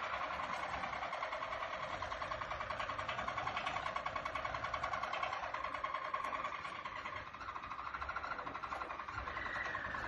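Harzer Roller song canaries singing a continuous rolling song of very fast, even trills, with a short higher gliding note near the end.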